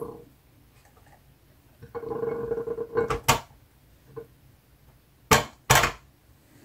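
Ears of fresh corn being set down and shifted on a metal baking tray. There is a scrape with a brief ringing tone from the tray about two seconds in, then knocks, the two loudest and sharpest just past five seconds in.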